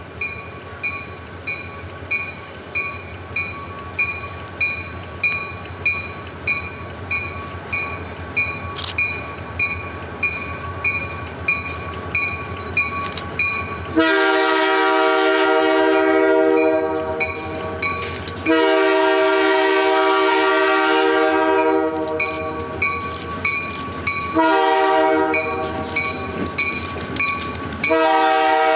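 A railroad crossing bell rings steadily, about one and a half strokes a second. About halfway through, a diesel locomotive's multi-chime air horn comes in with the grade-crossing signal: two long blasts, a short one, and a final long blast that runs on.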